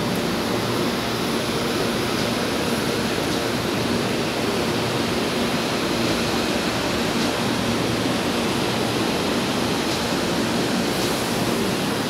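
Steady rushing noise with a faint low hum running under it, unchanging throughout.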